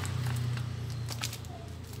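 A few light clicks and taps as a brass manifold head is worked by hand onto a pressure-washer plunger pump, over a steady low hum.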